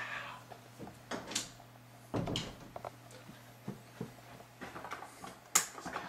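Scattered soft knocks, rustles and clicks of someone moving quietly through a dark room past a door, with a heavier thud about two seconds in and a sharp click about five and a half seconds in, over a faint steady low hum.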